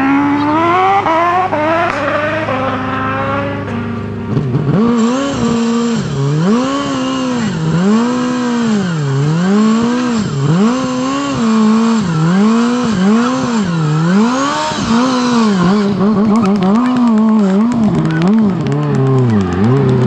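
Ford Escort Mk2 rally car's engine revved hard over and over with its wheels spinning, as it is pushed out of a ditch. After a few rising revs at the start, the pitch swings up and down about once a second, then settles to a steady note near the end.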